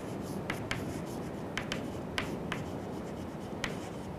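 Chalk writing on a chalkboard: irregular short taps and scrapes of the chalk as letters are formed, over a steady low room noise.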